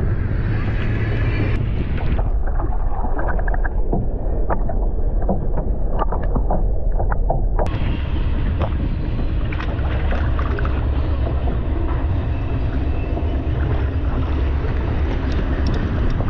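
Wind buffeting the microphone as a steady low rumble, with scattered light clicks and knocks.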